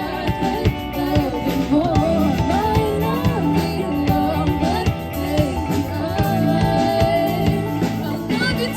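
A band playing a song: a lead voice singing over guitar, with low held bass notes and a steady drum beat.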